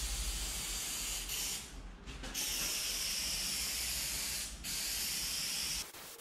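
Aerosol can of spray adhesive hissing as glue is sprayed onto carpet, in long bursts with short breaks, cutting off near the end.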